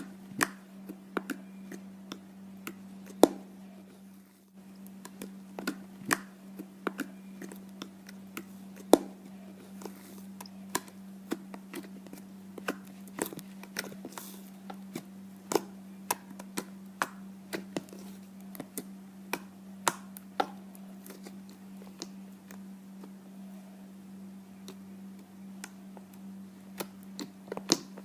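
Slime being squeezed and pressed by hand, giving irregular sticky clicks and pops, a few of them sharp and loud, over a steady low hum.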